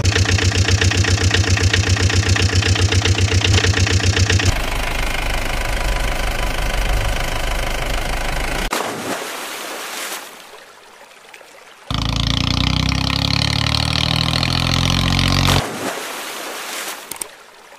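Engine sound effects laid over toy trucks: a pulsing engine run for about four seconds, then a steadier engine sound, a quieter gap, and another engine run. Near the end come a few short splashes as a toy pickup hits the water.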